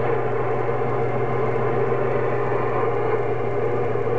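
CB radio receiving an incoming transmission with no voice on it: steady hiss with a low hum and several held tones.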